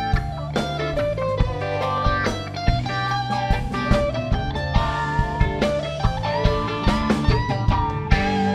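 A live rock band playing an instrumental passage of the song, with no singing: electric guitar lines bending in pitch over bass and a steady drum beat.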